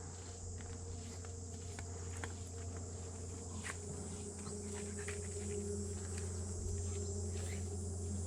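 Steady high-pitched chirring of insects such as crickets, with scattered light clicks and rustles and a low steady hum underneath.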